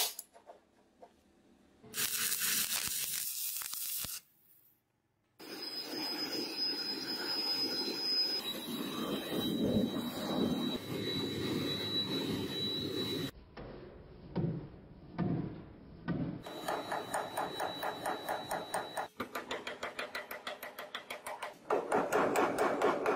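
Forging sounds in several short cuts: a long stretch of steady rushing noise while borax flux is sprinkled onto the glowing damascus billet, then, near the end, fast, evenly spaced hammer blows on the hot billet.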